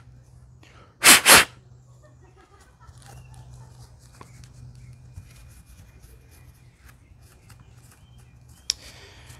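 Wet wipe rubbing over a pistol slide, wiping off excess blue Loctite, with faint scratchy rustling throughout. Two loud, short hissing bursts come about a second in, and a single sharp click comes near the end.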